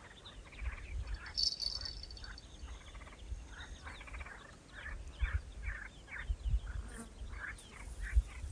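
A run of short, rough animal calls, two or three a second, like waterfowl or frogs calling. A small bird chirps briefly about a second and a half in, over a low rumble of wind on the microphone.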